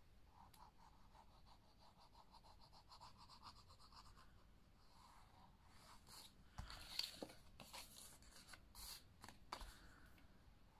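Faint, quick scratching as glue is rubbed onto the tabs of a 250 gsm cardstock piece. About six seconds in come a few louder taps and rustles of the card being handled.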